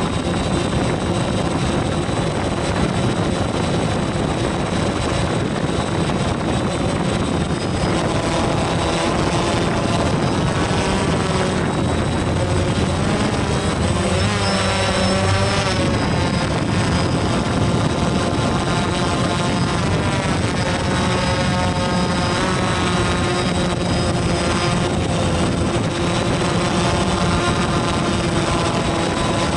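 DJI Phantom quadcopter's propellers and motors whirring steadily, heard close up from the drone's own camera, with the pitch of the motor whine wavering and swooping as the drone manoeuvres, most clearly about halfway through.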